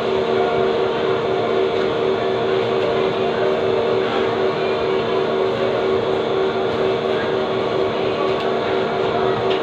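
Steady machine hum with a few constant tones, unchanging throughout.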